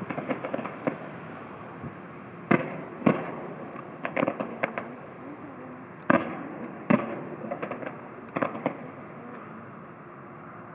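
Fireworks display about a kilometre away: shells bursting in a series of sharp bangs, some single and some in quick clusters, each with a short echoing tail. Lighter crackling fills the first second.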